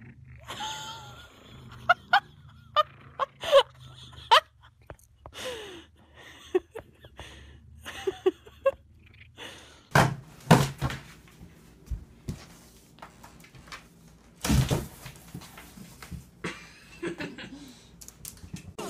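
A woman laughing in short bursts, then a series of thumps and knocks, loudest at about ten seconds and again near fifteen seconds.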